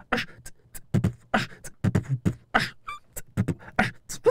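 Beatboxing into a handheld microphone: a fast rhythm of vocal kick-drum thumps and snare and hi-hat clicks, with a brief pitched vocal sound about three seconds in.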